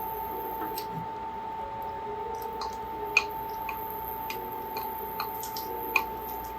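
Light irregular clicks and taps of a cooking utensil against cookware while the eggs are worked, two of them sharper, over a steady high hum.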